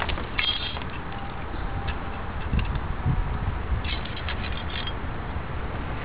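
Scattered light metallic clicks and taps as the motorcycle's drive chain is pushed and a tape measure is handled to check the slack, over a steady low background rumble. The clicks come in a few bunches, most of them near the start and again about four seconds in.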